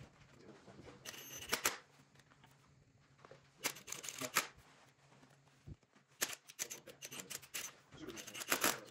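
Kobalt 24-volt cordless driver running in short bursts, four times, driving in the screws that close an e-bike's controller box cover.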